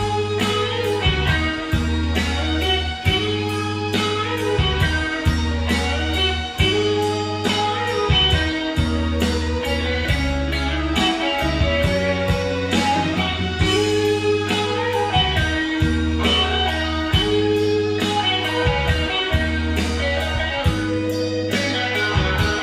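Instrumental interlude of a rock ballad: a guitar plays a melodic solo over bass and a steady drum beat, with no singing.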